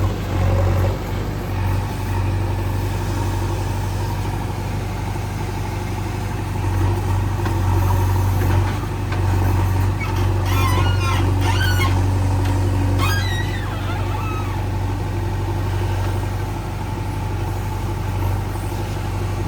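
JCB 3DX backhoe loader's diesel engine running steadily while the machine works, its loudness rising and falling a little. About halfway through there are a few short high squeaks.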